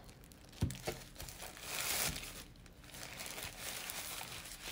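Thin white protective wrap crinkling and rustling as it is handled and pulled off a wireless charging stand, with a short knock a little over half a second in.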